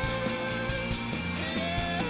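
Live band music led by electric guitar, from a slow blues song played in concert, with a held note sounding over the band.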